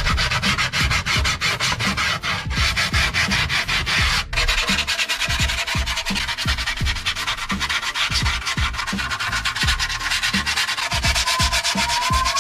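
Rapid, steady rubbing strokes against skateboard grip tape, a coarse rasping scrape, with a brief break about four seconds in.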